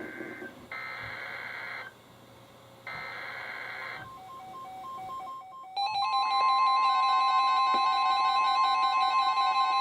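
NOAA Weather Radio broadcast heard through several weather radios. First come three short, screeching bursts of SAME digital header data; then the radios' alert alarms start beeping. About six seconds in, the loud, steady 1050 Hz warning alarm tone begins under the beeping. Together they announce a new alert, a flood warning.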